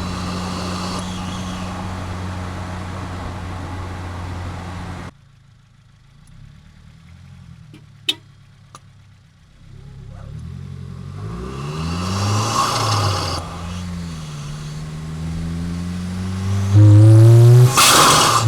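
Tuned 2022 Subaru WRX's turbocharged 2.4-litre flat-four heard at the intake: a steady engine note for about five seconds that drops away suddenly, a sharp click a few seconds later, then the engine climbing and falling in pitch as it accelerates, turning very loud near the end.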